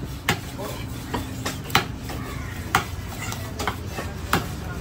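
A long knife slicing through a large fish on a wooden chopping block: a scraping cut with about five sharp clicks of the blade, roughly one a second.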